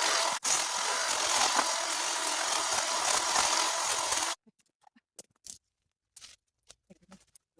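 Small garden power cutting tool running steadily, with a brief break about half a second in. It cuts off abruptly a little past halfway, leaving only a few faint clicks.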